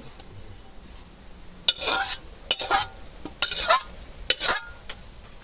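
Flat metal spatula scraping the inside of a metal kadai, four strokes about a second apart, scraping the last of the chicken curry out into a clay pot.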